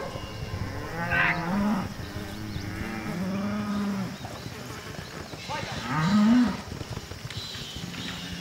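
Cattle mooing: three separate calls, a long low one in the middle and the loudest, rising then falling, about six seconds in.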